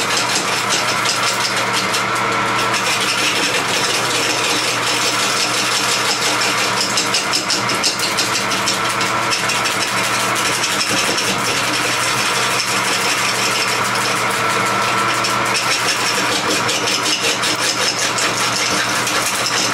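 Wood lathe running at its slowest speed, about 317 RPM, through a belt-driven countershaft, while a turning gouge cuts a rough 13-inch log blank. A steady motor and belt hum runs under a rapid, continuous ticking of the tool meeting the uneven wood.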